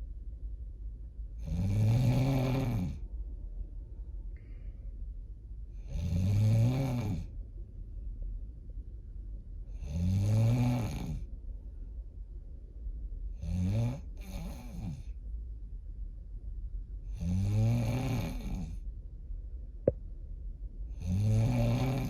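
A person snoring, one snore about every four seconds, each a deep drawn-out breath whose pitch rises and then falls, likened to a diesel truck. About two thirds of the way through, one snore breaks into two short snorts. Near the end there is a single sharp click.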